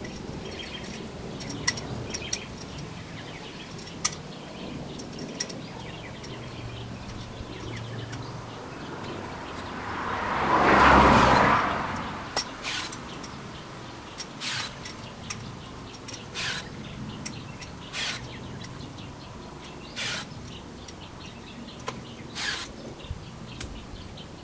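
Birds chirping, with light clicks and short scratches from metal fence wire being worked and tied to a post. About halfway through, a rushing sound swells and fades over about three seconds.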